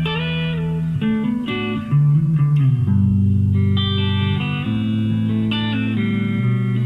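Electric guitar played on the RJ Broadcaster Deluxe's clean tone: plucked chords that ring and change about every second, with a moving bass line under them.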